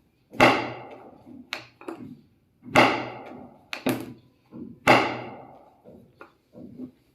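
Three loud thumps about two seconds apart, each dying away over about a second, with a few lighter taps between them, from hands-on chiropractic treatment of a patient lying on a treatment table.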